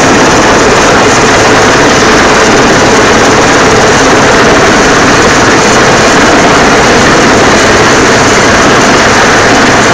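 Search-and-rescue helicopter hovering low overhead: a steady mix of rotor and turbine-engine noise, so loud that it overloads the recording.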